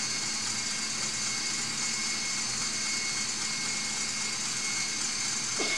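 Electric stand mixer running steadily at high speed, whipping eggs: an even motor hum with a steady high whine.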